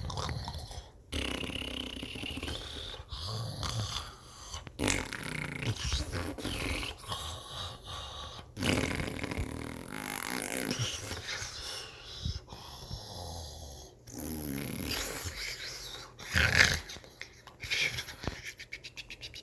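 A person doing a string of comic, exaggerated snores that keep changing in character, broken by several abrupt short gaps.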